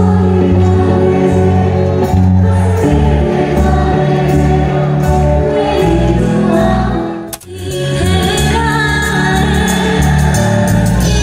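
Live band music with a woman singing into a microphone, amplified through the stage PA. The music cuts out for a moment about seven seconds in, then carries on.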